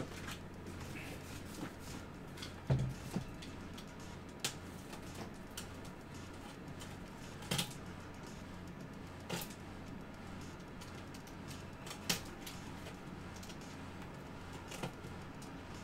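Hands handling a baseball and its packaging on a table: scattered clicks and knocks, the loudest a dull thump about three seconds in, over a steady low electrical hum.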